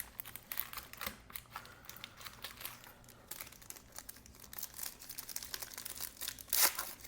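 Crinkling of foil-wrapped Magic: The Gathering booster packs being handled: a rapid run of small crackles, with a louder rustle near the end.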